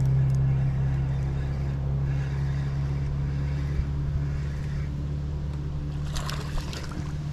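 Boat motor running steadily with an even low hum.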